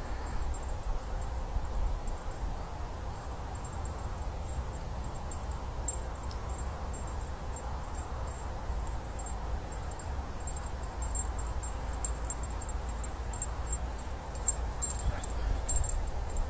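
Wind buffeting the microphone as a steady low rumble, with a faint high-pitched ticking whine throughout and a few light clicks near the end.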